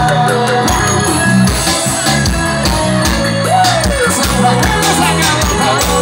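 Live band music played loud through a stage sound system: a singer's voice over a steady kick-drum and bass beat, heard from among the crowd.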